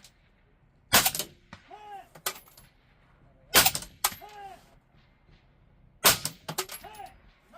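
Suppressed FN SCAR 16 short-barrelled rifle in 5.56 firing three shots about two and a half seconds apart, each a sharp crack with a short decaying tail. Smaller cracks and knocks follow each shot, with a quick run of them after the third.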